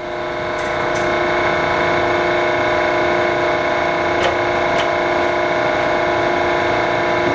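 Cincinnati-Milacron R-57 universal cylindrical grinder running with its table traversing: a steady machine hum with several constant tones that builds over about the first second and then holds. A few light clicks come through, the wheel infeed advancing at table reversals.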